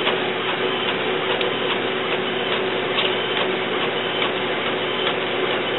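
Epson WorkForce 840 inkjet printer printing a page: a steady mechanical running sound with light ticking as the sheet feeds out.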